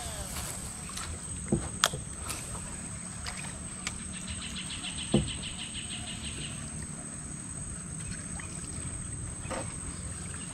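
A steady low rumble with a few sharp knocks on the wooden boat, and a fast, even high ticking lasting about two seconds near the middle.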